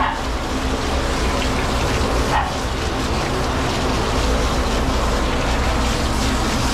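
High-velocity pet dryer blowing steadily, a loud even rush of air over a low motor hum. A dog gives a short cry about two and a half seconds in.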